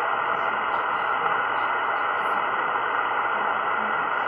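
Amateur radio transceiver tuned to the 20-metre band on upper sideband with no voice coming through, giving out a steady hiss of band noise and static with no treble above about 3 kHz.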